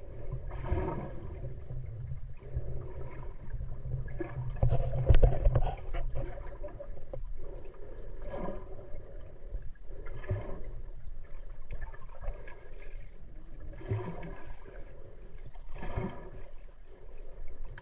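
Lake water splashing and gurgling around a swimmer, over a steady low rumble, with several sharper splashes, the loudest about five seconds in.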